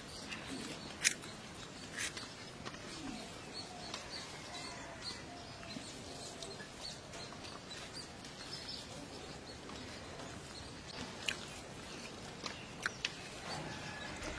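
Birds chirping faintly in the background, with a handful of sharp clicks and taps: one about a second in and a few near the end.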